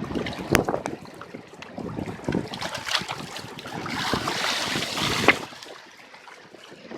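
Choppy high-tide sea water sloshing and slapping irregularly, with wind buffeting the microphone. A louder rush of water builds about four seconds in and stops sharply a second later.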